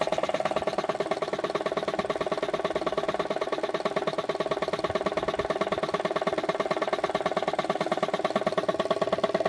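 Motivair belt-driven piston air compressor running steadily, driven by a Delco electric motor, with a fast, even pulsing from the pump. Its outlet is closed off, so it is pumping up pressure in the tank, and it is running really nice.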